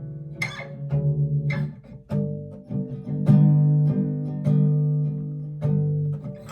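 Acoustic guitar playing a song's instrumental intro: chords struck about once a second and left to ring, with a full low end.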